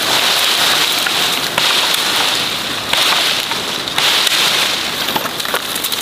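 A high, hissing noise that swells and fades in waves every second or so, with scattered small crackles of dry brush and fern stems being trampled and snapped.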